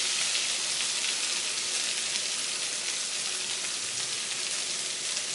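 Freshly added egg-coated rice and strips of pork belly sizzling in a hot frying pan: a steady high hiss of frying that eases slightly, with a few faint crackles.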